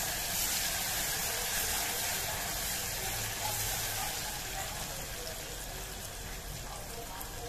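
Chopped onions and ginger-garlic paste sizzling as they fry in hot oil in a pressure cooker. The sizzle grows a little quieter toward the end.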